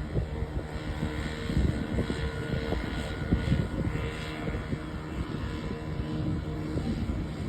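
An engine running steadily, a constant hum with a few held tones under rough low rumble.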